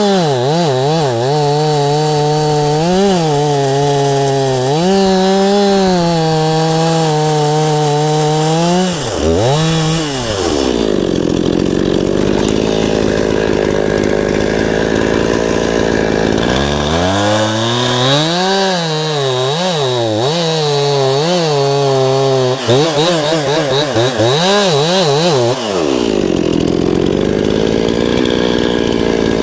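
Two-stroke chainsaw run at full throttle, its pitch dipping and recovering as it cuts pine. It drops back to idle about ten seconds in, revs up and cuts again for about nine seconds, then idles once more.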